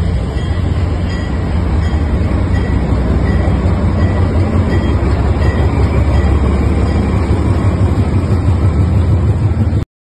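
Diesel locomotive rolling slowly past at close range, its engine giving a steady deep rumble over the noise of the train. The sound cuts off suddenly near the end.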